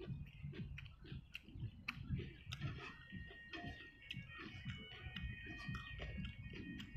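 Close-up chewing of a mouthful of fried onions, egg and steamed bun, with soft smacking clicks. Birds call in the background from about halfway through.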